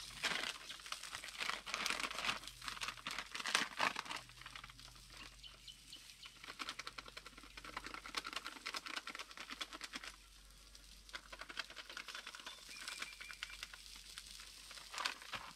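Crackling and crinkling, dense and loud for the first four seconds, then fainter and sparser.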